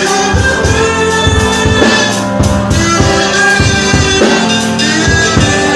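Praise-and-worship band music, with a drum kit keeping a steady beat under sustained instrument tones.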